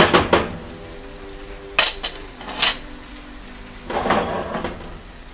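Wooden spoon knocking and scraping against a metal frying pan of tomato sauce. A few sharp clinks come at uneven intervals, with a longer clatter about four seconds in as the pan is handled on the gas hob's grate.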